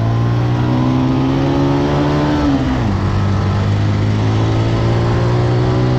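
Benelli 150cc motorcycle engine running while being ridden. Its note climbs slowly, drops sharply a little under three seconds in, then holds steady.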